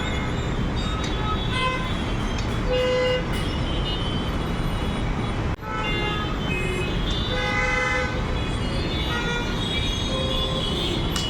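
Heavy road traffic in a jam: a steady din of engines, with many vehicle horns honking in short blasts at different pitches throughout.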